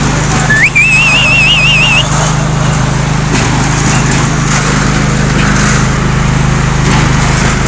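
Homemade concrete mixer's motor running steadily with a constant low hum, the drum turning a concrete batch. About half a second in, a high wavering whistle-like tone sounds for roughly a second and a half over it.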